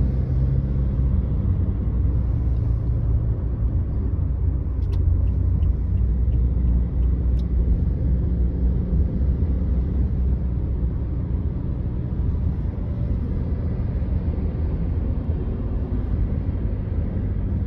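Steady low rumble of a car driving at speed on a highway, tyre and engine noise heard from inside the cabin.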